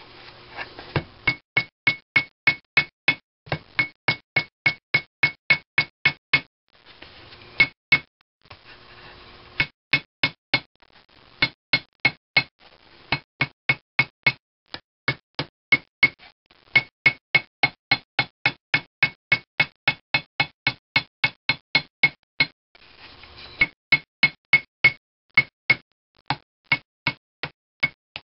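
Ball peen hammer tapping a sheet of non-asbestos gasket material against the edge of an engine cylinder, cutting out a head gasket by hammering along the edge. Quick, even taps, about three to four a second, each with a light metallic ring, broken by a few short pauses.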